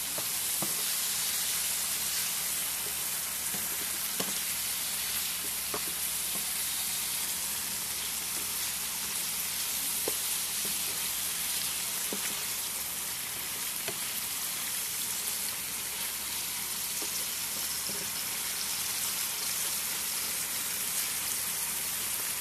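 Chicken pieces sizzling as they fry in hot oil in a pan: a steady hiss with scattered small pops.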